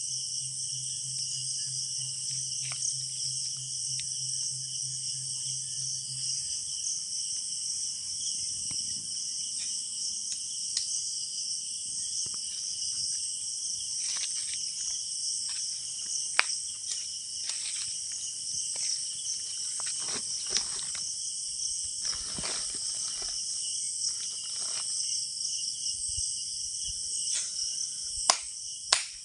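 Steady high-pitched chorus of night insects. A low hum runs for the first six seconds or so, and scattered sharp clicks and knocks come through the second half, the loudest near the end.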